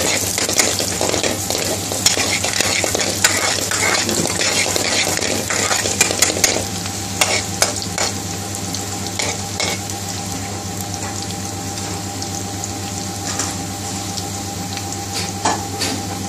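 Chopped garlic sizzling and crackling in hot vegetable oil in a metal karahi-style pan, with a metal utensil scraping and clicking against the pan as it is stirred. The stirring clicks thin out after about seven seconds while the steady sizzle carries on.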